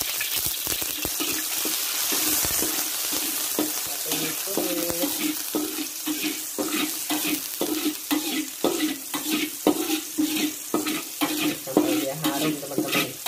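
Chopped garlic chives sizzling in hot oil in a wok. A metal spatula scrapes and taps against the pan in quick repeated strokes, more often in the second half.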